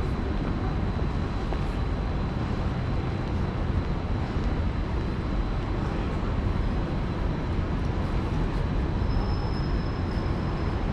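City street ambience: a steady hum of road traffic with no distinct events.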